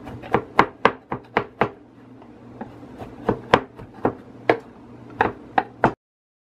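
Long kitchen knife chopping cooked chicken on a wooden cutting board: a string of sharp knocks of the blade against the wood, a few a second, thinning briefly about two seconds in. The chopping stops abruptly near the end.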